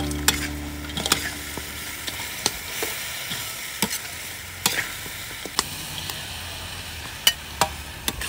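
Stir-frying in a wok: food sizzling in hot oil, with sharp irregular clicks and scrapes of a metal spatula against the wok.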